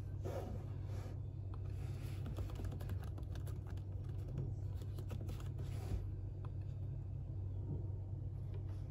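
Typing on a MacBook Air laptop keyboard: a quick run of key clicks that stops about six seconds in, leaving only a few stray taps.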